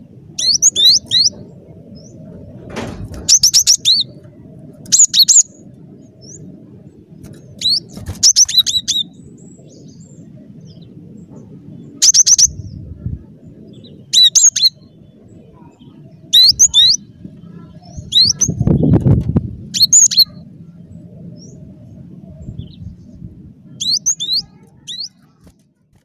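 Cinereous tit (glatik batu) calling actively: short phrases of quick, high chirping notes that sweep up and down, repeated every one to four seconds, over a faint low background rumble.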